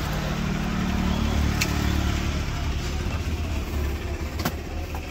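A motor vehicle engine running with a steady low rumble, its higher hum fading out about two and a half seconds in. A couple of sharp clicks can be heard.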